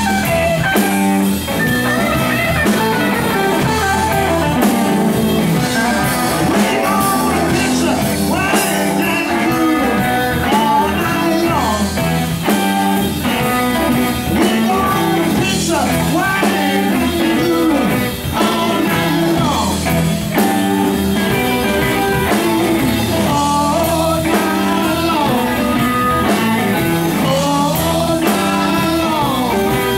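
Live blues-rock band playing loud and steady: electric guitars over a drum kit.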